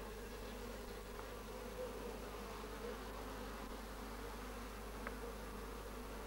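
Honeybees buzzing at a wooden hive's entrance: a steady hum.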